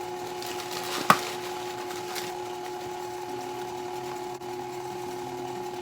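Electric kitchen mixer running steadily on low, creaming butter, sugar and eggs, with a steady motor hum. A sharp knock comes about a second in and a fainter one about two seconds in.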